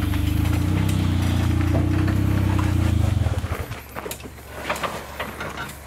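A Suzuki Jimny's engine running steadily at low revs, then cutting out a little over three seconds in. After that only a faint low hum and a few light knocks are left.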